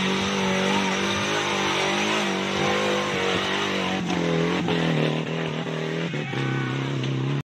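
Off-road tubular buggy's engine running hard as the car climbs through deep mud. The engine note drops in pitch about five and a half seconds in, and the sound cuts off abruptly near the end.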